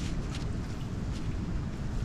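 Wind buffeting the microphone, a steady low rumble, with a few faint clicks and rustles from close handling.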